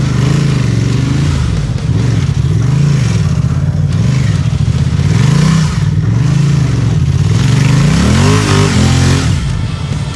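Adventure motorcycle's parallel-twin engine revving up and down over and over as the throttle is opened and closed, its pitch rising and falling every second or two, with a longer climb near the end.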